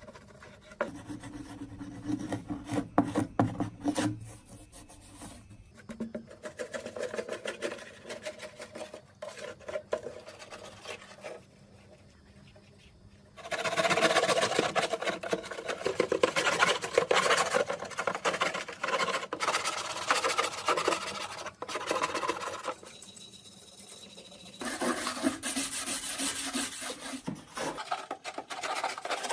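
Rapid, rasping abrasive strokes of scraping or rubbing on a hard surface, coming in spells with short pauses; the strokes grow louder and brighter about halfway through.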